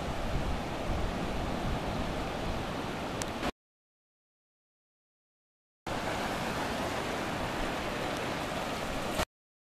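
Steady wash of ocean surf breaking and churning in the shallows. The sound cuts out completely for about two seconds in the middle and again just before the end.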